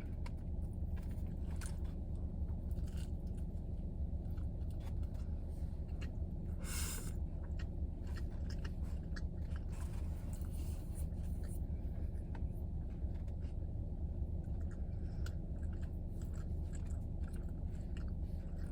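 Close-up chewing and biting of a roast beef sandwich, with many small wet clicks and one brief louder crunch about seven seconds in, over a steady low hum in the car cabin.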